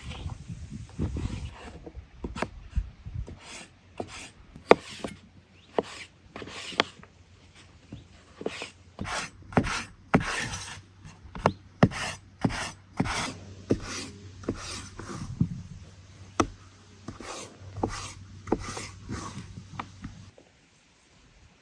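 Knife working raw potatoes: irregular scraping and cutting strokes, one or two a second, that stop shortly before the end.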